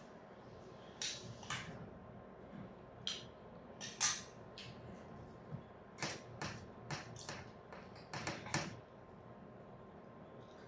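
Eating sounds: a plastic spoon and fingers clicking and scraping on a metal compartment tray, with chewing, in about a dozen short, irregular clicks, the loudest about four seconds in.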